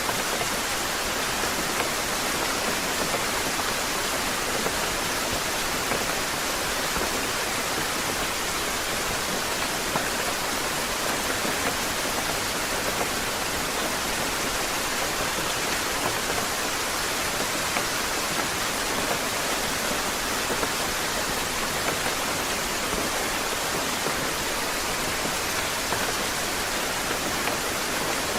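Steady rain falling, an even hiss of many fine drops with no change in strength.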